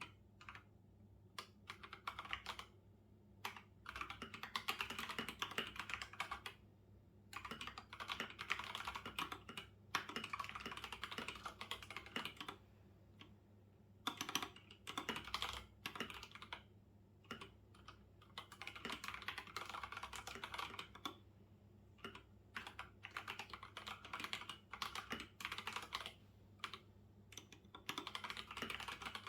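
Typing on a computer keyboard, in rapid runs of keystrokes a second or two long with short pauses between them, and a few single key clicks.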